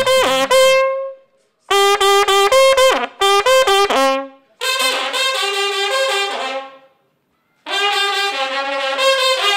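Brass horn blown in four phrases with short pauses between them: a quick run of short repeated notes, then longer held notes that sometimes drop in pitch.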